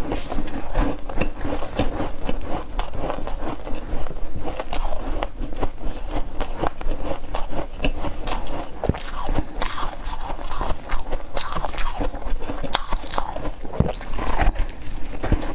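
Close-miked biting and chewing of freezer frost and ice: a dense, irregular run of crisp crunches that goes on without a break.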